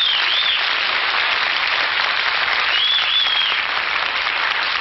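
Studio audience applauding an entrance, steady and dense throughout. A high gliding tone cuts through twice.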